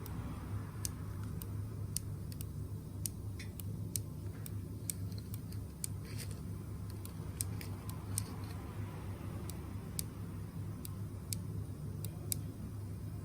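Sharp metallic clicks, irregular at about one or two a second, over a steady low hum from a car: the abnormal noise being chased, which the mechanic traces to a part that may need grease or replacement.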